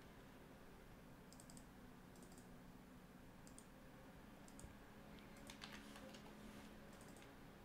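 Near silence: faint room hum with a handful of soft, scattered clicks on a computer.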